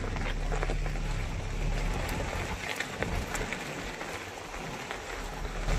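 Wind rushing over the microphone above a low rumble from an open safari jeep, with a few faint clicks.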